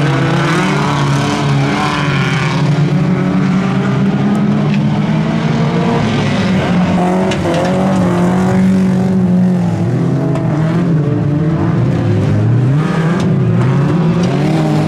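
Several modified stock cars of up to 1800 cc racing together, their engines revving up and down and overlapping as the cars accelerate and lift off.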